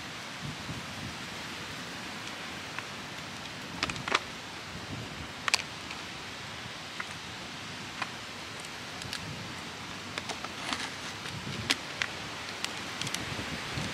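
Wood campfire crackling, with scattered sharp pops and snaps over a steady wind hiss; the pops come in small clusters about four seconds in and again through the second half.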